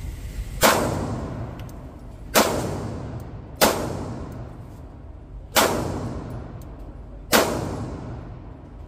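Five pistol shots fired one at a time at an uneven pace, each a sharp crack followed by a long echoing tail off the concrete walls of an indoor range.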